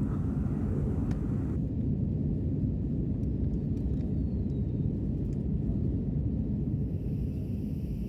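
Steady low rumble of airliner cabin noise from the engines and airflow in flight.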